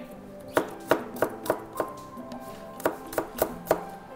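Kitchen knife slicing garlic cloves on a cutting board: about ten sharp chops in two short runs.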